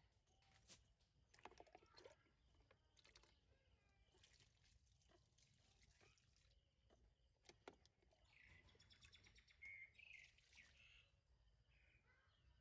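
Near silence, with scattered faint clicks and a few faint high chirps about eight to eleven seconds in.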